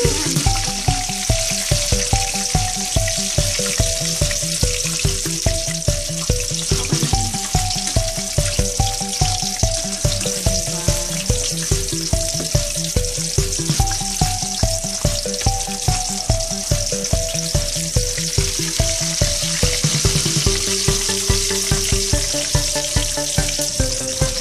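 Fish frying in hot oil in a pan, a steady sizzle, under background music with a steady beat and a simple melody.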